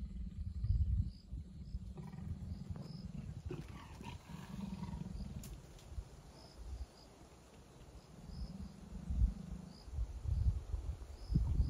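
Leopard growling in low, rough rumbles that come and go in several bouts.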